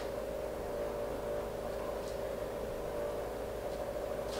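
A steady background hum of several held tones, with a couple of faint soft ticks near the end.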